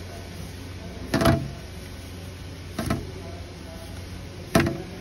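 Fried spring rolls set down one by one in an aluminium tray: three short knocks on the metal, about a second and a half apart, over a steady low hum.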